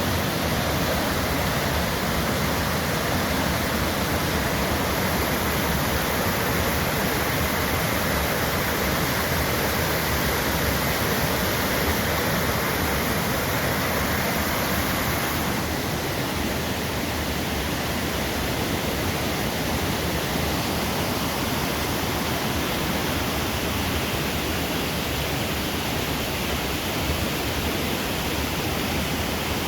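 Waterfall: water pouring and splashing in a steady, loud rush of white noise.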